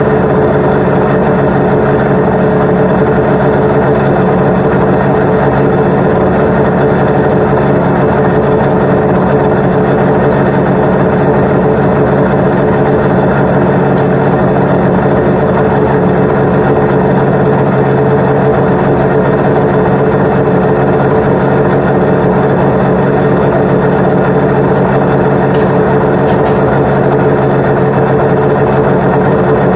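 1996 Arctic Cat ZRT 800's three-cylinder two-stroke snowmobile engine idling steadily, with no change in speed. It runs evenly, its carbs freshly tuned and idle set.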